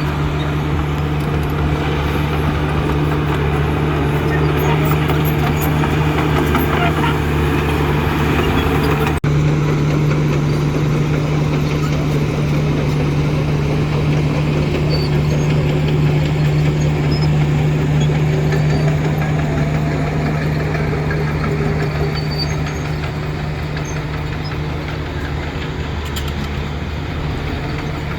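Heavy diesel engine of earthmoving machinery running steadily with a deep hum. About nine seconds in there is a brief break where the sound jumps, then the same steady running continues.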